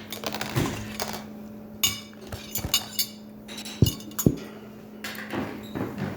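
Cutlery and plates clinking and knocking as food is served at the table: a run of separate clinks, some ringing, with two loud knocks close together about four seconds in, over a steady low hum.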